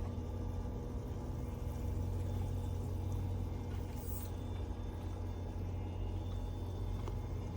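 A small electric motor running with a steady low hum.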